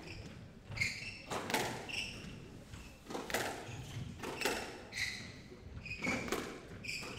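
Squash rally: the ball knocks sharply off the rackets and the walls, about one or two strikes a second, with short squeaks of court shoes on the wooden floor in between.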